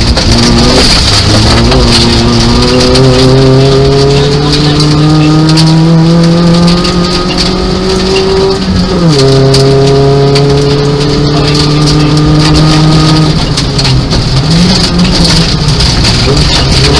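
Nissan Micra rally car's 1.0-litre four-cylinder engine heard from inside the cabin under hard acceleration. The revs climb steadily, drop sharply at a gear change about nine seconds in, and climb again. They fall as the throttle is lifted about thirteen seconds in, then pick up once more. Underneath runs a constant hiss and patter from the tyres on the loose, wet stage surface.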